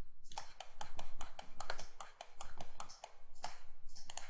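Rapid clicking of a computer keyboard and mouse, about six clicks a second, with a brief pause about three seconds in.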